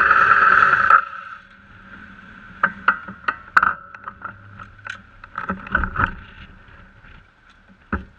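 Motorcycle engine idling, then switched off about a second in, followed by scattered clicks and knocks of the parked bike and riding gear being handled.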